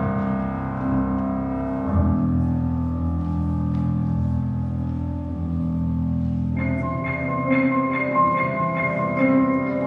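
Instrumental music: held low chords that change about two seconds in, joined about two-thirds of the way through by a repeating high, bell-like figure.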